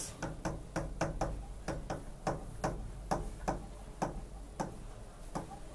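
Pen tip clicking against the glass of an interactive display board as words are handwritten, a series of sharp ticks about two to three a second at uneven spacing, over a faint low hum.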